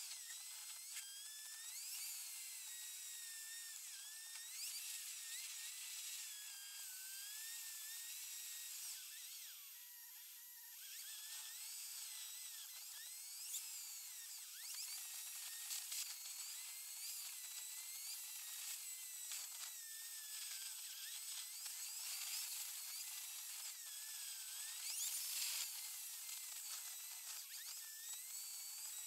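A car's engine and road noise, recorded inside the cabin and sped up 36 times. It comes out as a high, buzzing whine whose pitches glide quickly up and down, with no low end left.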